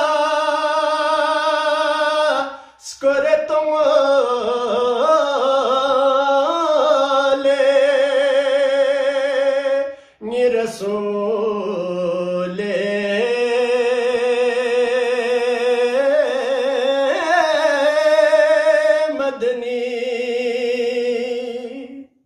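A man singing a Balti qaseeda unaccompanied, holding long notes with a wavering vibrato. He breaks off briefly about three seconds in and again about ten seconds in, and the voice stops just before the end.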